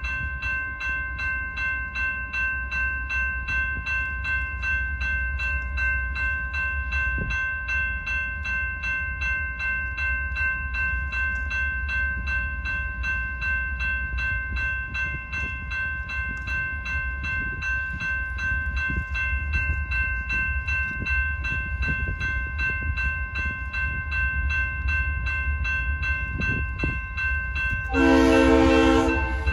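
Railroad crossing bell ringing steadily over a low rumble. Near the end, the approaching freight locomotive's horn sounds one loud blast, about a second and a half long.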